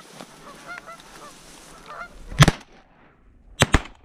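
Geese honking, then a shotgun blast about two and a half seconds in, followed near the end by two more shots in quick succession.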